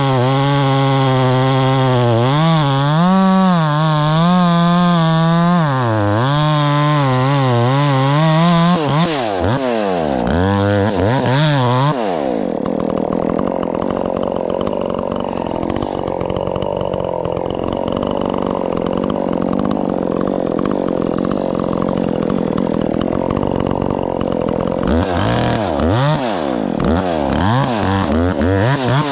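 A small two-stroke top-handle chainsaw cutting. For about nine seconds its pitch wavers under load, then it is revved up and down several times. A rougher, less even stretch follows, and more rev swings come near the end.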